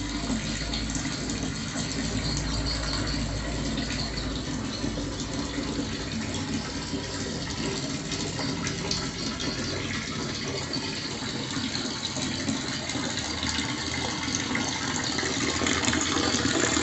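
Water pouring in a strong, steady stream from a PVC pipe into a storage tank, growing louder near the end.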